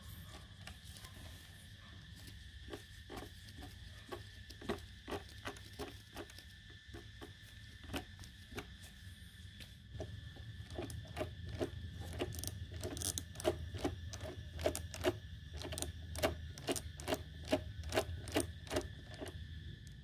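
RC truck's electric motor and two-speed gearbox drivetrain running: a steady faint whine over a low hum, with irregular sharp metallic clicks that come faster and louder from about halfway through, while the hum also grows.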